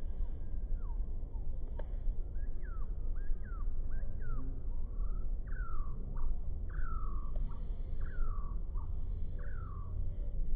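A songbird singing a series of clear whistles that slide downward, roughly one a second, over a steady low rumble. A single sharp click comes near the start.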